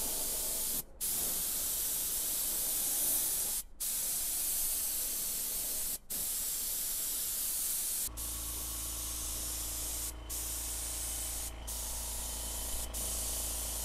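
Air spray gun hissing as it atomises finish, in long steady bursts with brief pauses where the trigger is released. About eight seconds in, a low steady hum joins under a fainter hiss.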